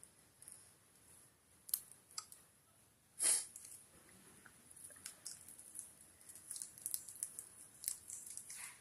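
Cockatiels nibbling: scattered light clicks and crunches, with one louder brief rasp about three seconds in and a quicker run of clicks over the last few seconds.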